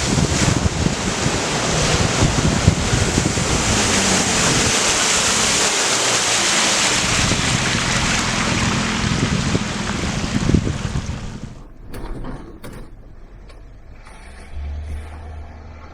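Off-road vehicle pushing through a water-filled mud hole: engine working under load under a steady rush of splashing water for about eleven seconds. The splashing then stops suddenly, followed by a few knocks and a low engine hum near the end.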